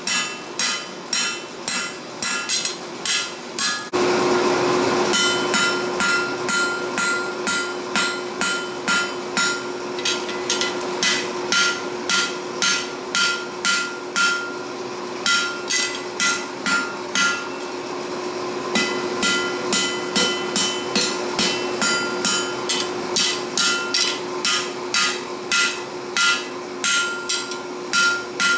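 Blacksmith's hammer striking steel on an anvil at about two blows a second, each blow ringing, with a couple of short pauses. A steady hum comes in about four seconds in and runs under the blows.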